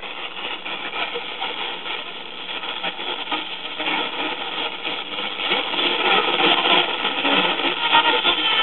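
1961 Zenith AM tube clock radio giving off a steady hiss of AM static through its speaker, with no station coming through clearly.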